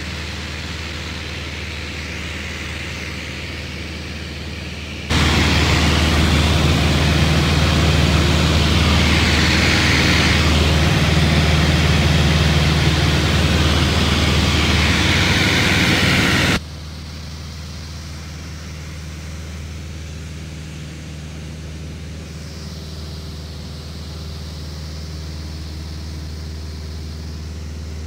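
Cessna's single piston engine and propeller running steadily in flight, a low drone heard inside the cabin. About five seconds in it jumps abruptly louder and brighter, and about eleven seconds later drops back just as suddenly.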